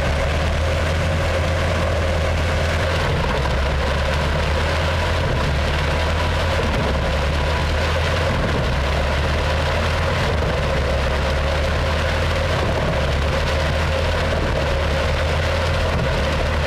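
Tractor-powered wood chipper running at a steady speed: a constant low engine rumble with a steady whine from the machinery.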